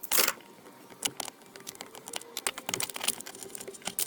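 Irregular small clicks and light taps of a screwdriver working a small T15 Torx screw out from under the plastic steering column cover, with a short louder scrape just after the start.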